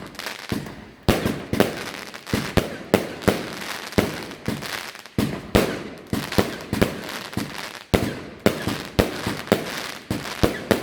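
SPOOK Fireworks 'The Villain' 90-shot 1.3G firework cake firing: a rapid series of sharp bangs, about two to three a second, each echoing briefly.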